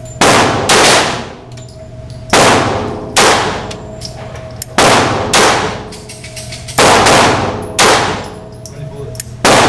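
Handgun shots fired in a steady string, about ten in all, often in quick pairs, each sharp report trailing off in echo.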